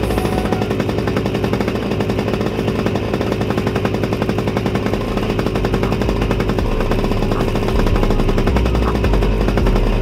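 60cc two-stroke kart engine running at speed, a rapid, steady run of firing pulses.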